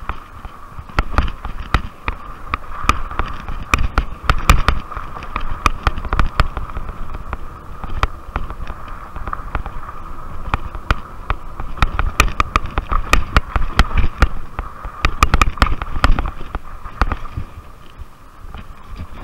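Rad Rover fat-tire e-bike on a rough dirt trail: the frame, rack and camera mount rattle and knock in quick, irregular jolts over the bumps, over the steady whine of its 750 W hub motor. The knocking eases off near the end.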